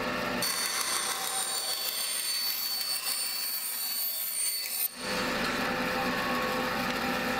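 Bandsaw blade cutting through a thin sheet of plywood: a steady, even hiss with a thin high whine for about four and a half seconds. About five seconds in the sound changes abruptly as the cut ends and the saw runs on without load.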